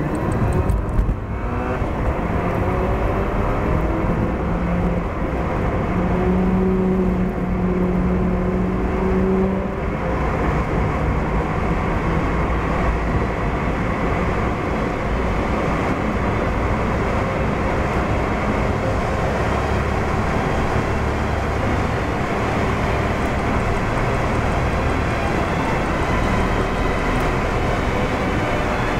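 Car driving on a motorway, heard from inside the cabin: steady engine and tyre-on-road noise. For the first ten seconds or so a clear engine hum edges up in pitch as the car gathers speed, then it settles into an even cruising drone.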